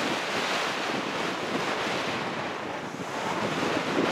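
Strong, gusty wind buffeting the microphone ahead of an approaching severe thunderstorm, easing a little about two and a half seconds in and gusting up again near the end.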